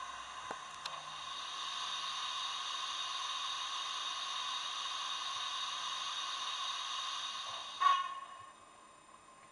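Steady steam hiss played by the Howes DCC sound decoder in a Bachmann OO gauge WD 2-8-0 model locomotive standing still, with two faint clicks in the first second. About eight seconds in there is a short loud burst, and then the hiss cuts off.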